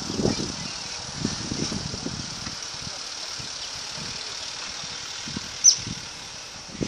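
Sand-hauling truck's engine running at low speed as the truck rolls past on a dirt yard, an uneven low rumble. A single brief high squeak about five and a half seconds in.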